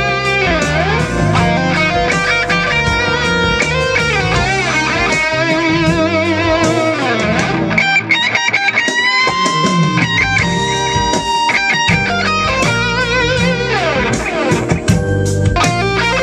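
Gibson Les Paul Traditional Pro electric guitar playing an overdriven lead through a Mesa/Boogie Triaxis preamp, with delay from an Alesis Quadraverb 2, over a backing track with bass. Sustained notes with wide vibrato, rising string bends to a held note about halfway through, and a downward slide near the end.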